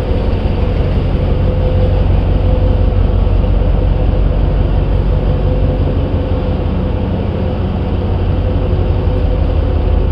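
River passenger launch's engine running steadily on a test run: a loud, even low hum with a steady higher tone above it.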